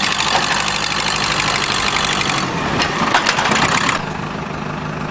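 A vehicle engine idling, with a loud rapid rattling clatter over it that stops about four seconds in, leaving the steady engine hum.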